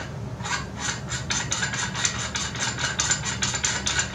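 A threaded metal spacer being screwed on by hand onto the camera and filter-wheel assembly: a quick, even run of short scraping ticks, about four or five a second, as the threads turn.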